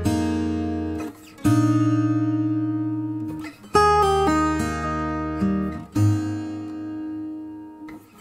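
Background music: acoustic guitar strumming chords, each left to ring and fade, with a new chord about every two seconds.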